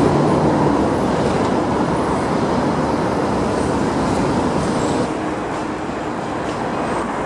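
City street traffic noise: a steady wash of road noise from passing vehicles, a little quieter from about five seconds in.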